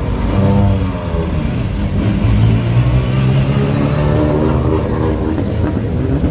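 Car engine revving, its pitch rising and falling several times.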